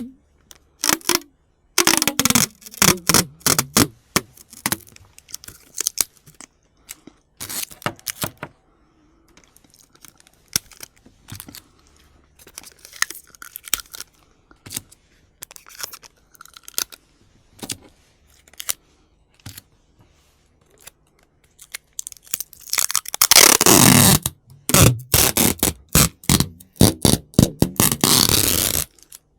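Scotch tape being pulled off the roll, a series of short, screechy rips, one sliding down in pitch, with quieter crinkling and clicks of the tape in between. Near the end come two long, continuous pulls.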